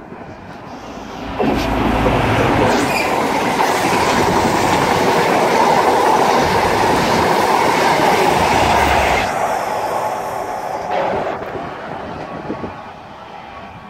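A First Great Western InterCity 125 (HST) runs through the station at speed. The leading Class 43 diesel power car comes up loud about a second and a half in, the coaches rush past, and a second engine goes by as the rear power car passes. The noise then fades as the train draws away.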